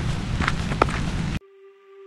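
Footsteps on a dirt and gravel trail over a steady low background rumble, cut off suddenly about a second and a half in. Soft music then begins on a single held note.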